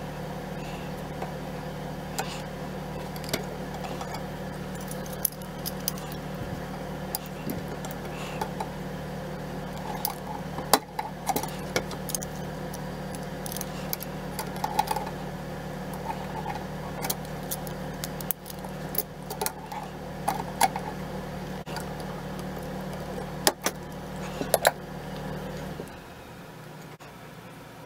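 Small metal parts of a K98k rifle clicking and clinking against each other as the rifle is put back together by hand. A steady low hum runs underneath and stops near the end.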